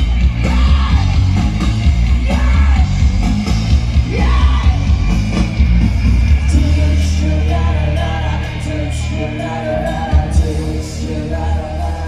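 Rock music with loud, shouted singing over heavy bass, played through an outdoor stage PA. The singing turns to held notes about six and a half seconds in.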